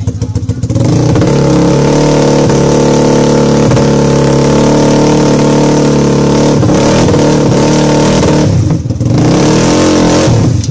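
A drag-racing motorcycle engine revved hard and held at high revs for several seconds. The revs dip briefly about eight and a half seconds in, rise again, then drop back to idle near the end.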